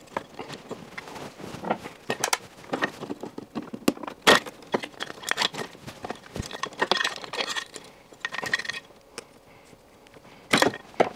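Hands working inside the base of a compact dishwasher, pulling the wire connectors off the heating element and freeing it from its housing: irregular clicks, knocks and light metallic rattles, with the sharpest knocks near the end.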